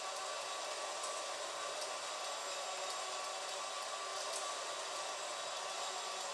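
Motorised kinetic sculpture running: its mechanism makes a steady whirring hiss, with a few faint ticks from the moving parts.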